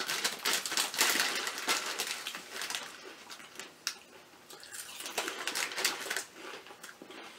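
Rapid crackling of Walkers prawn cocktail crisps being crunched while the foil crisp packet crinkles in the hands, in two stretches: one over the first three seconds and a shorter one a couple of seconds later.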